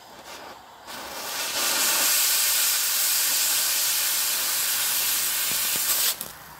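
Oxy-fuel cutting torch blowing a loud, steady hiss as it cuts through a steel pallet-rack brace. The hiss rises in about a second in and cuts off suddenly near the end.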